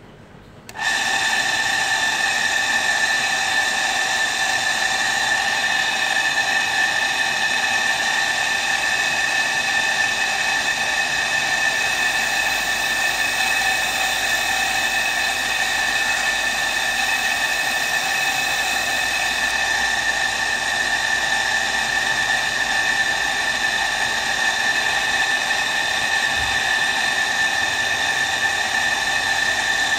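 Single-phase electric motor with a sandpaper disc on its shaft, starting abruptly about a second in and then running with a steady, high whine. For several seconds in the middle, a faint added hiss comes from a knife blade held against the sandpaper.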